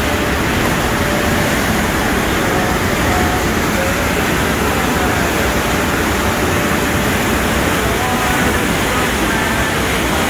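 Water rushing and churning in a canal lock's gate recess as the lock's water level is changed: a steady, even rush of white water, with faint voices of onlookers over it.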